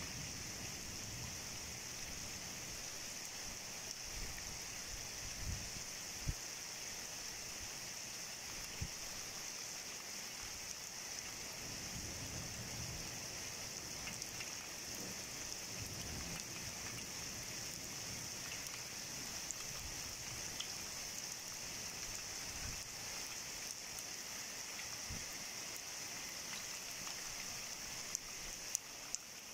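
Heavy thunderstorm rain falling steadily, an even hiss, with a few sharp ticks near the end.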